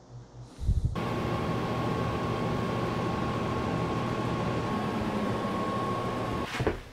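Window air conditioner running: a steady whir with a low hum and a faint high whine, stopping about six and a half seconds in. A low knock or two just before it starts.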